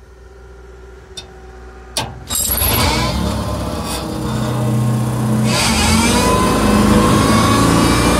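John Deere compact track loader's diesel engine running quietly, then revving up sharply about two seconds in and running hard to power the high-flow flail mower. From about halfway, a whine that rises slowly in pitch joins it.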